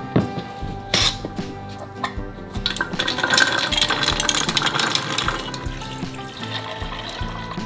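Washed black beans and then water poured from a stainless steel bowl into a stainless steel soy milk maker jug, over background music. There are two knocks in the first second or so, as the jug is handled.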